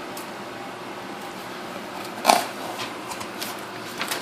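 Packing material being handled during an unboxing: quiet handling noise with one brief sharp rustle about two seconds in and a few light clicks near the end.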